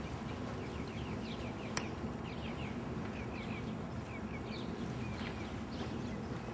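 Songbird chirping: a run of short, quick falling notes repeated over several seconds, over a steady low hum. One sharp click comes just under two seconds in.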